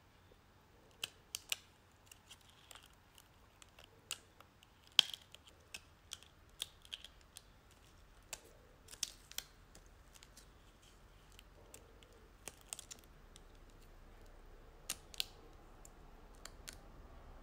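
Weeding glitter craft vinyl with a hook tool: irregular sharp clicks and light crackles as the hook picks at the vinyl and the waste peels off the carrier sheet, the loudest click about five seconds in.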